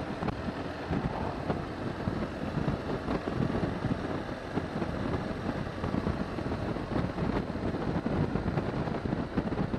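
Wind rushing over a helmet microphone on a moving motorcycle, with road and engine noise underneath.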